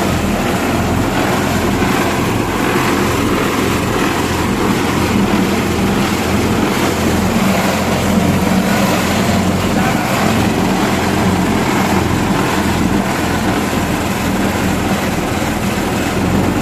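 Small engine running steadily at a constant speed with a low hum, the motor of a sago-processing machine.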